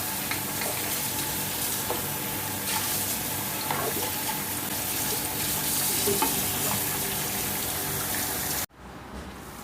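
Food sizzling in hot oil in a cooking pan while being stirred, with scattered clicks and scrapes of the utensil against the pan. The sizzle cuts off abruptly near the end, leaving a much quieter steady hiss.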